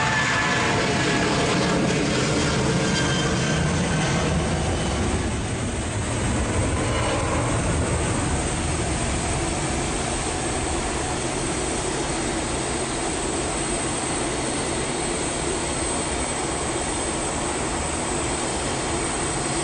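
Boeing 737-800's CFM56-7B jet engines at takeoff thrust on a wet runway. The engine whine falls in pitch as the aircraft passes in the first couple of seconds, then settles into a steady noise as it lifts off and climbs away.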